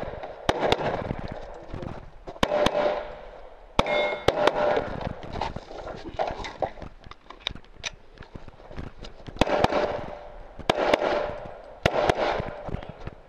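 Handgun shots fired at speed, mostly in quick pairs, each with a short echoing tail. There is a lull in the middle while the shooter moves between positions, then more pairs of shots near the end.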